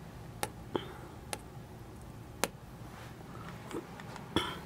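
Quiet room with a steady low hum and about half a dozen short, faint clicks spread through, plus a slightly longer noise near the end.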